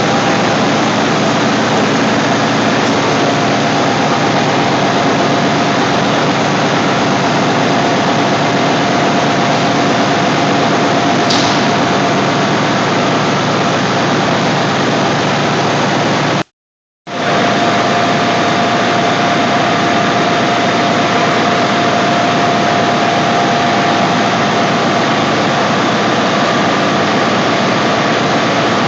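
Piston compressors driven by high-voltage synchronous motors running in a compressor station: a loud, steady machine din with a constant whine on top. The sound drops out completely for about half a second a little past halfway, then comes back unchanged.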